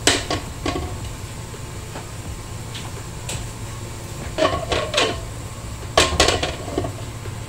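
Cookware clattering: a spatula and utensils knocking against a wok and dishes in sharp knocks, a few at the start, a cluster about four and a half seconds in and another about six seconds in, over a steady low hum.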